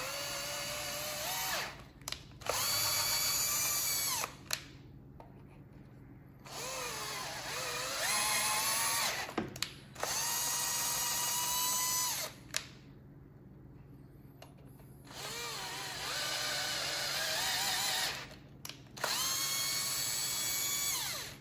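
Power drill run in about six short bursts, each spinning up with a rising whine, holding steady and winding down, as it drives a tap to chase the threaded bolt holes in a Kohler K301 engine block.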